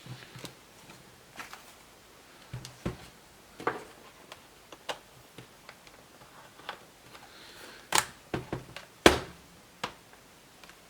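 Scattered small plastic and metal clicks and light knocks from handling a laptop memory module and slot, with two sharper clicks near the end.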